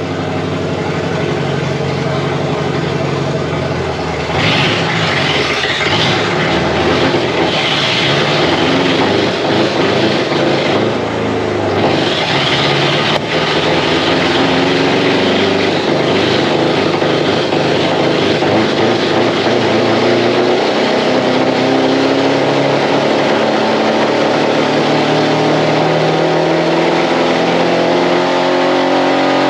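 Pickup truck engine running hard on a chassis dyno while spray paint is sprayed into its air intake as fuel. A hiss sits over the engine for several seconds starting about four seconds in. The revs climb steadily through the last several seconds.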